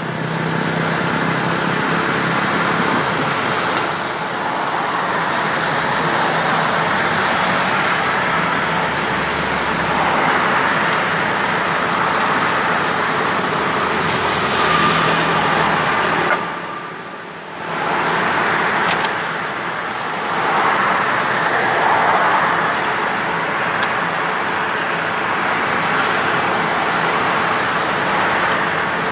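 Steady road traffic noise from cars, with a brief lull a little past halfway through.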